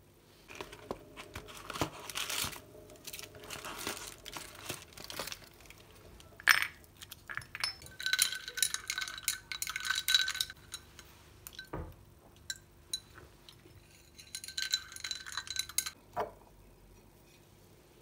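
A stirrer clinking over and over against the inside of a ceramic cup as a drink is stirred, each clink ringing briefly, in two spells. There are a few separate knocks of tableware being handled and set down.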